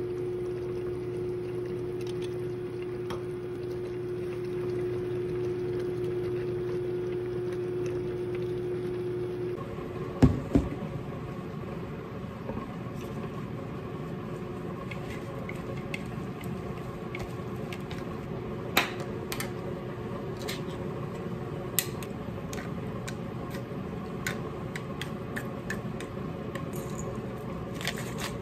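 Pot of stew simmering on an induction cooktop with a steady electrical hum. About ten seconds in, the hum stops and two sharp knocks follow. Then come scattered clicks and taps of chopsticks and a bowl as salad greens are mixed, with a quick run of taps near the end as seasoning is shaken in.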